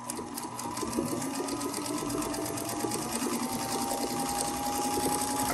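1933 Singer 221 Featherweight sewing machine, running on its original motor, stitching steadily through fabric: a fast, even clatter of the needle and hook over the motor's whine, stopping abruptly near the end.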